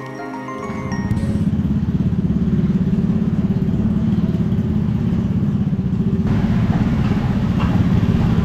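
Background music with mallet notes ends in the first second, then a motorcycle engine runs close by, loud, low-pitched and steady, with street noise picking up near the end.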